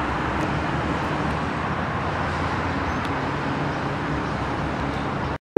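Steady road traffic noise, an even rumble and hiss of passing vehicles, that cuts off abruptly near the end.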